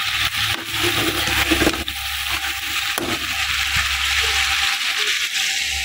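Chicken pieces sizzling in hot fat and their own juices in a steel pot: a steady frying hiss.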